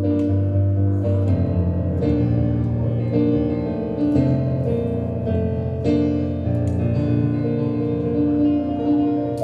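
Slow instrumental keyboard music, sustained chords changing every second or two.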